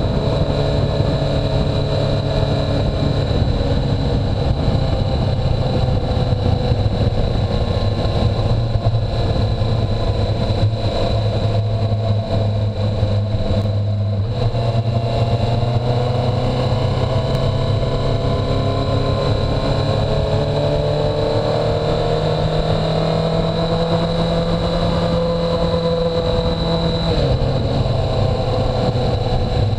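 2017 Suzuki GSX-R1000R's inline-four engine running on the move, its pitch drifting gently and stepping around halfway through and again near the end.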